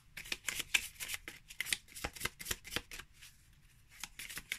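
Deck of matte oracle cards being shuffled overhand: a quick, irregular run of card slaps and flicks, with a short lull about three seconds in.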